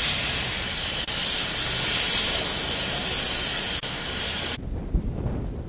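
A steady, loud rushing hiss with no tone in it. For a few seconds from about a second in, its upper range is cut off; near the end it drops to a quieter low rumble with one thump.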